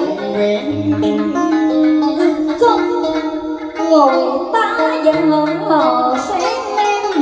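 Cải lương music: guitar and đàn sến playing a melody full of bent, sliding notes. About four seconds in, a woman starts to sing over them.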